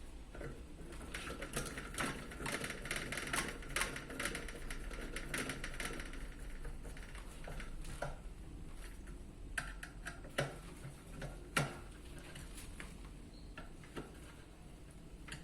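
Small parts of an electric fan being handled and fitted together: a dense run of light clicks and rattles, thinning out in the second half, with a few sharper clicks near the middle.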